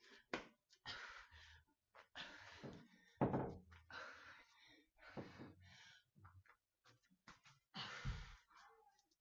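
A woman breathing hard in short, irregular noisy exhalations while doing commandos, walkouts and shoot-throughs on an exercise mat, with dull thumps of hands and body landing on the mat. The loudest thump comes a little after three seconds in, and another comes near the end.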